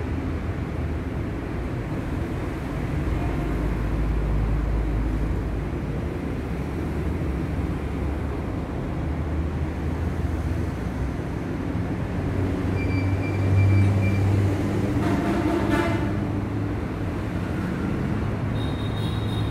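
Steady low rumble of woodworking machinery running, with a brief rapid rattle about three-quarters of the way through.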